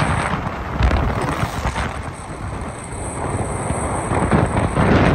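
Vehicle travelling on the road, with wind buffeting the microphone in a rough, uneven rush and low rumble.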